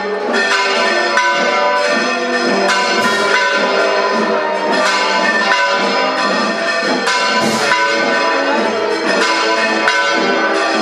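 Church bells ringing: strokes follow one another quickly, and their long ringing tones overlap into a continuous clangour.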